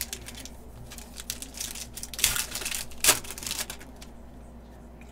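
Foil trading-card pack wrapper being torn open and crinkled, with clicking and rustling as the cards are handled; the crackling stops about four seconds in.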